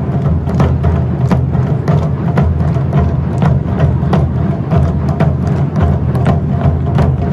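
Taiko ensemble drumming on large barrel drums on slanted stands and tall rope-laced drums: deep, steady booming with sharp, clicking strikes about two to three times a second.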